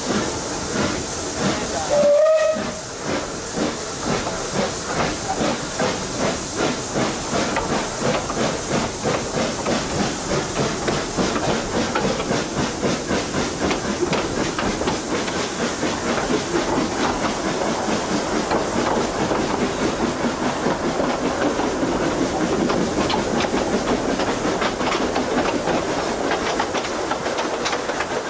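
Narrow-gauge steam locomotive: steam hissing, then a short whistle blast about two seconds in, followed by a steady run of exhaust chuffs that quicken as the train gathers speed.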